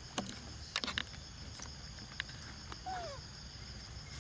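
A few sharp clicks and rustles from a bag being handled, then about three seconds in a single short squeal falling in pitch from a young macaque, over a steady high insect drone.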